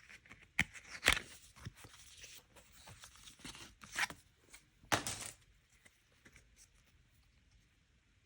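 Wrapper of a photocard pack being torn open and crinkled by hand, with sharp rips about one second and five seconds in.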